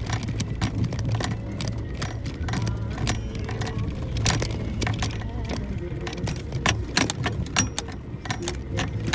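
Suzuki Jimny JB64 driving slowly over a rough forest road: a steady low engine drone with many irregular sharp clicks and rattles, several a second, from the vehicle jolting over the track.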